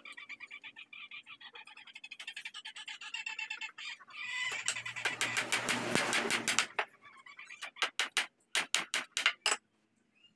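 High squeaky chattering and clicking, then a quick run of about ten sharp hammer taps on the wooden headboard frame about three quarters through, as a joint is knocked home under the bar clamp.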